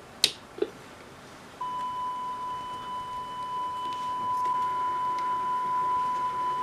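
Two sharp clicks, then about a second and a half in a steady single-pitch test tone starts from a Sony Betacam SP camera and holds unchanged: the audio reference tone being recorded onto tape to check the camera's sound.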